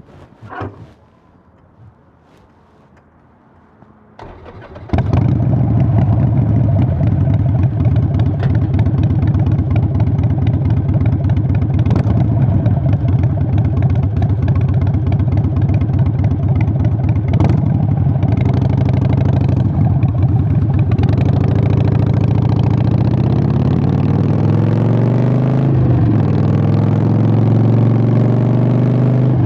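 Harley-Davidson Sportster 883's air-cooled V-twin with Vance & Hines Short Shots exhaust cranks briefly about four seconds in and starts, then runs loud and steady at idle. In the last several seconds it revs and rises in pitch, dips briefly, and climbs again as the bike pulls away.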